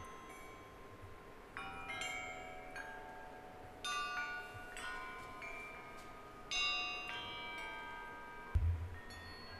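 Hanging scrap-metal hammers of the 'Hammer Harp' struck in turn, each ringing with long, bell-like metallic tones that overlap like chimes; about seven strikes, a second or so apart. A dull low thump comes with one strike near the end.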